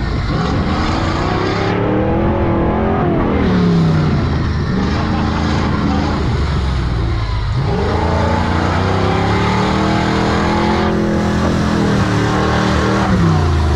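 Jeep engine revving hard under load while pushing through a deep mud pit. Its pitch climbs, drops about a third of the way in, climbs again and holds, then falls near the end.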